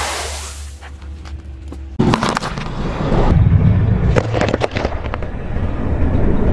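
Car tyre rolling onto a block of green floral foam, crunching it down, then a tyre rolling over a pale yellow squash, which bursts and splits with sharp crackling pops, over the low rumble of the car's engine. The scene changes abruptly about two seconds in.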